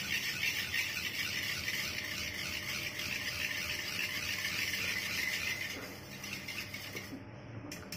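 Wire whisk beating curd in a steel bowl, its wires scraping the bowl in quick, even strokes. The strokes grow quieter and stop about a second before the end.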